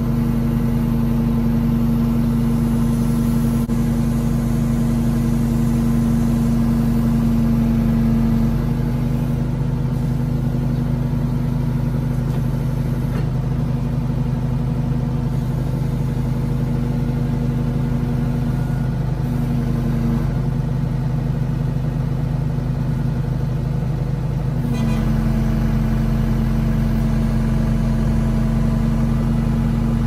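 Backhoe loader's diesel engine running steadily while the backhoe boom is worked. The engine eases off slightly about eight seconds in and picks up again near twenty-five seconds.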